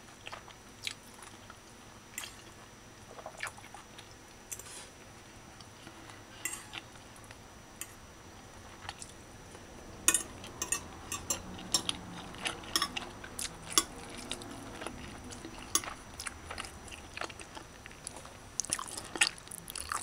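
Metal fork clicking and scraping on a plate of rice and stew, with chewing. The clicks come now and then at first and grow much more frequent about halfway through.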